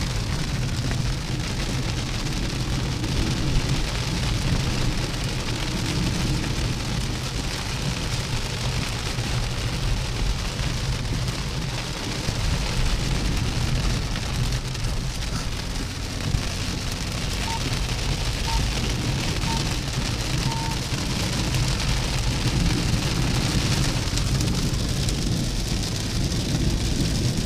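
Heavy rain hitting a car's roof and windscreen, heard from inside the cabin, over the steady low rumble of the car driving on a wet, flooded road.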